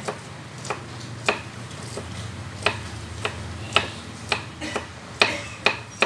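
Kitchen knife chopping green beans into short pieces on a round wooden chopping board: about a dozen crisp knocks, roughly two a second, unevenly spaced.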